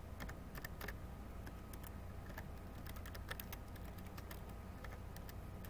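Faint, irregular keystrokes on a computer keyboard, over a steady low hum.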